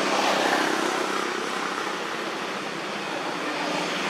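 Road traffic passing: a steady rushing noise that swells near the start and eases, with a faint engine hum beneath.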